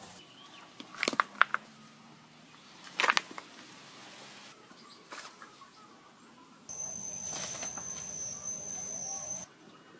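A few sharp clicks about a second in and another knock at about three seconds, then a steady high-pitched insect drone that sets in about halfway and jumps in pitch twice.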